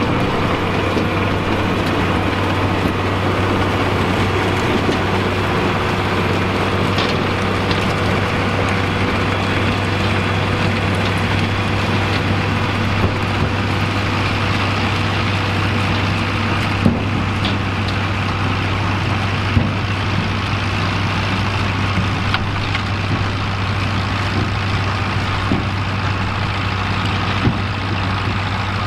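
Fiat 110-90DT tractor's diesel engine running at a steady speed, with a few short knocks or clicks scattered through.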